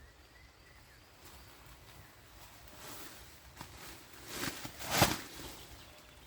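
Quiet rustling that swells to a short, louder rustle or crunch about five seconds in.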